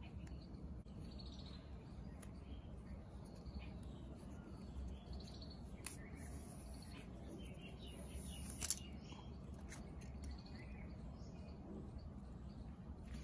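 Birds chirping faintly in the background. Two sharp clicks cut through, about six and nine seconds in, and the second comes after a brief high scraping hiss.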